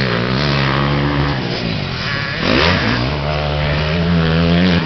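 Motocross bike engines running and revving, with one engine's pitch falling and rising again about halfway through.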